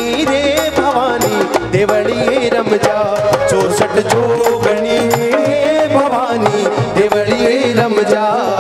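Instrumental interlude of a live Rajasthani devotional bhajan: a melody with wavering, gliding notes over harmonium and a steady dholak drum beat.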